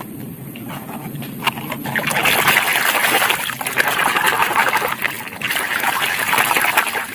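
Muddy water splashing and sloshing as a small plastic toy truck is swished back and forth through a shallow puddle by hand, starting about two seconds in. Before that, a few light knocks of plastic toys.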